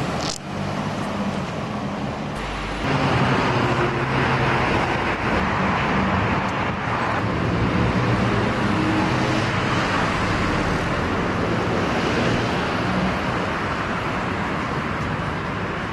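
Road traffic noise: a steady rush of passing vehicles with a low engine hum, getting louder about three seconds in.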